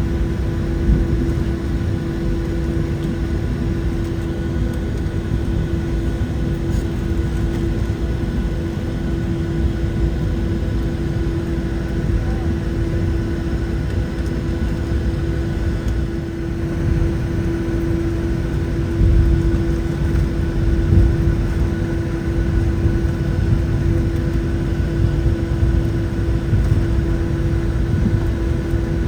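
Boeing 737-700's CFM56-7B turbofan engines running at low taxi power, heard from inside the cabin as a steady drone with a constant hum over a low rumble.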